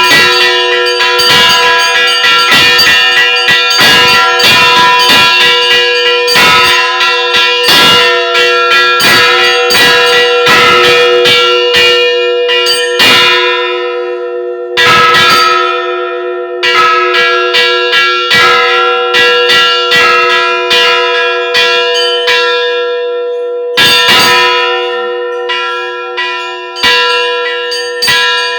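Church bells ringing an Easter peal: several bells struck in quick succession, their tones ringing on and overlapping. Twice the ringing thins out and fades briefly, then resumes with a loud strike.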